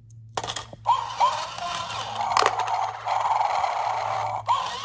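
Battery-powered toy dog coin bank set off by a coin in its bowl: its built-in eating sound effect plays while its mechanism bends the plastic dog down to gobble the coin. The sound starts suddenly about half a second in and carries on.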